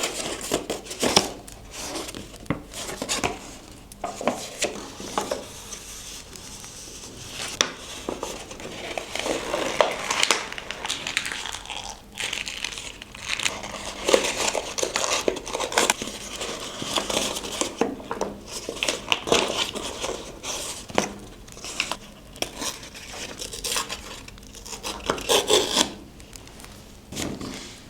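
Paper and craft supplies being handled on a desk: irregular rustling and crinkling of paper, mixed with small clicks and taps of objects being picked up and set down.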